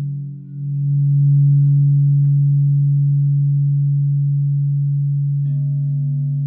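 Crystal singing bowls ringing with a loud, steady, pure low hum and softer higher tones above it. The hum dips briefly about half a second in, then swells again. Near the end, another bowl is struck with a light click and adds a higher tone.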